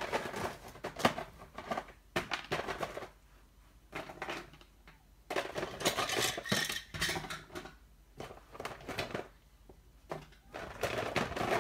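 Small plastic Littlest Pet Shop figures and accessories clattering and rattling in several bursts as a container of them is dumped out and rummaged through.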